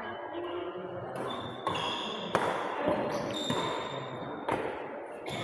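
Badminton rally: a series of sharp racket strikes on the shuttlecock, coming every half second to a second, echoing in a large hall.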